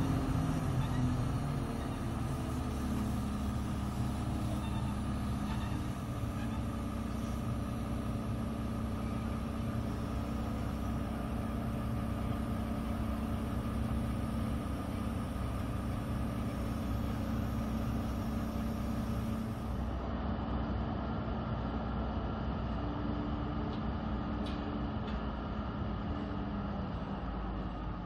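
Truck-mounted crane's engine running steadily, powering the boom as it lifts a wall panel. It makes a continuous hum whose pitch shifts a little now and then.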